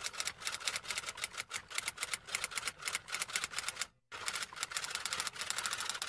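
Typewriter-style typing sound effect: rapid key clicks that break off for a moment about four seconds in, then resume more densely.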